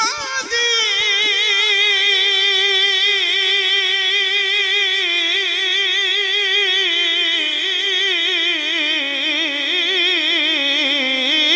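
A man's solo voice singing the long, drawn-out opening note of a Punjabi rubai, unaccompanied, with heavy vibrato, its pitch sinking slowly from start to end.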